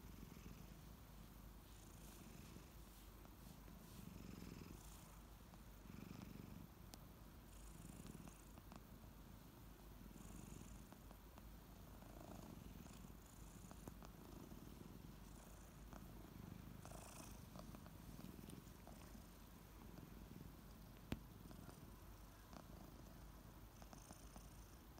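Kitten purring, faint and steady, swelling and easing about every two seconds with its breathing. One sharp click comes near the end.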